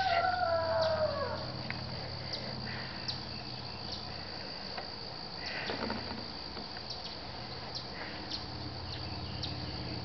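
Insects chirring steadily in a high, unbroken tone. In the first second a long call slides down in pitch, and a short, fainter call comes about halfway through.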